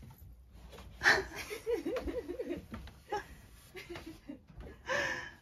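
A woman laughing softly, a run of short chuckles starting about a second in, with a short breathy sound near the end.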